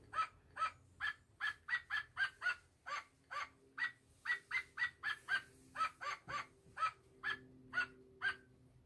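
A rapid string of short, high-pitched yaps like a small dog barking, about three a second, given as the voice of a plush dog hand puppet.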